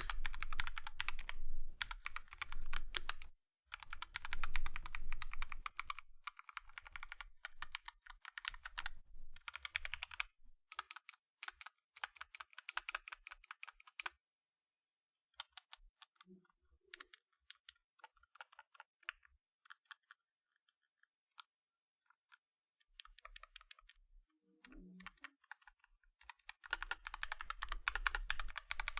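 Typing on a Dark Project KD83A mechanical keyboard with Gateron Cap Teal switches. Fast, dense keystrokes thin out after about ten seconds to scattered single clicks with pauses, then pick up into rapid typing again near the end.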